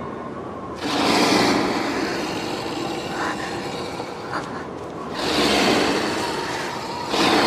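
Three loud swells of rushing, wind-like whooshing over a steady low rumble: one about a second in, one around five seconds in and one near the end.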